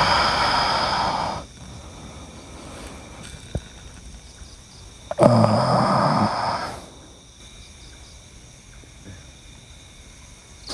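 Two loud, rough tiger-like roars with a low falling pitch, the first dying away about a second and a half in, the second starting about five seconds in and lasting about a second and a half.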